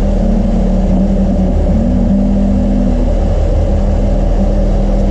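Fishing boat's engine running, a loud, steady, low drone.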